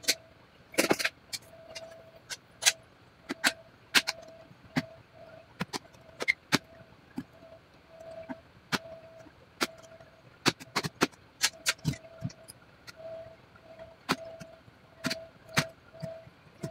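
Irregular sharp clicks and snaps of the Dell Inspiron 5570's bottom-cover clips releasing as the cover is pried loose from the chassis by hand. A faint beep repeats about twice a second underneath.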